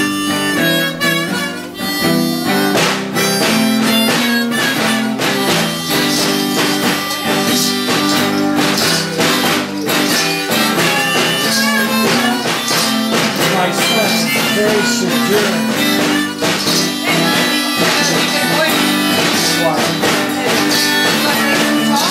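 Acoustic blues played live: a harmonica wailing long held notes over a strummed and picked acoustic guitar.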